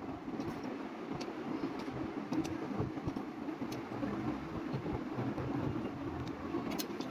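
Plastic building bricks clicking and tapping as they are handled, pressed together and set down on a glass tabletop: scattered small sharp clicks, a few in the first seconds and the sharpest near the end. Under them a steady low background rumble.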